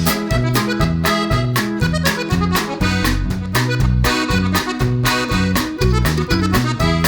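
Background music with a quick, steady beat, a bouncing bass line and an accordion-like lead melody.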